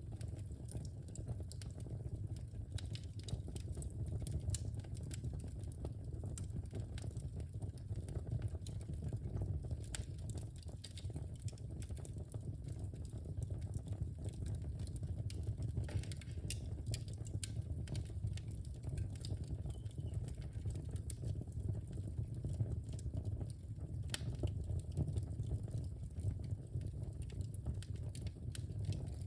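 Wood fire burning in a fireplace: a steady low rumble of flames with frequent small crackles and pops.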